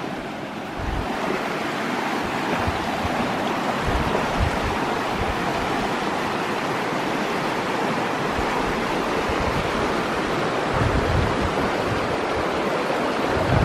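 Steady rush of flowing river water, with low buffets of wind on the microphone now and then.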